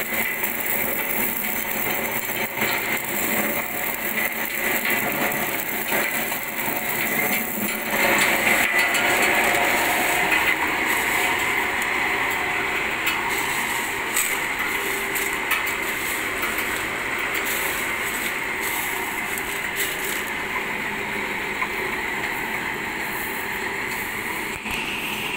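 Homemade stone crusher driven by an electric motor through V-belts, running and grinding gravel fed into its hopper: a steady grinding noise full of sharp clicks, louder from about eight seconds in.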